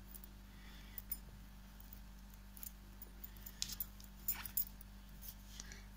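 Double-pointed knitting needles clicking and clinking lightly against each other as stitches are worked, a scatter of small sharp ticks.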